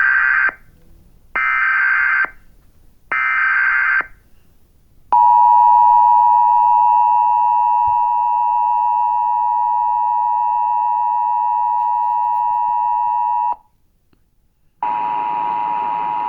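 Emergency Alert System broadcast tones: three short screeching digital header bursts, then the two-tone attention signal, a steady dual-tone buzz held for about eight seconds and cut off sharply. After a second's pause the two tones return under a harsher, noisier sound near the end.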